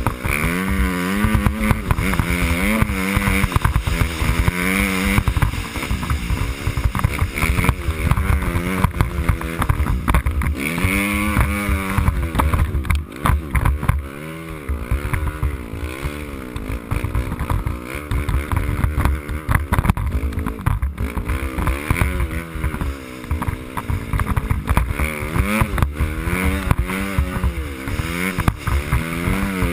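Dirt bike engine running hard under throttle, its pitch climbing and dropping again and again as the rider opens and closes the throttle.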